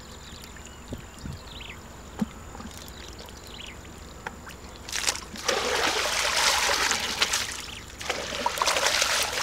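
Water splashing and sloshing as a plastic basket of fish and mud is dipped and shaken in shallow pond water. It starts about halfway through, breaks off briefly a few seconds later, then starts again.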